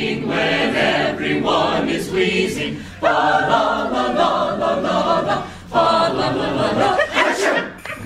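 Mixed choir of men and women singing, in phrases with short breaks between them.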